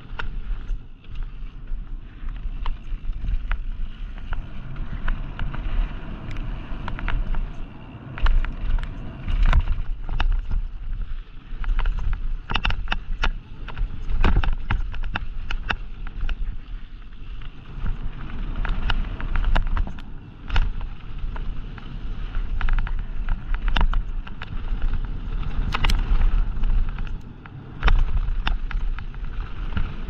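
Downhill mountain bike running fast over a loose dirt and gravel trail: steady tyre and wind rumble on the camera microphone, broken by frequent sharp clicks and rattles as the bike goes over rough ground.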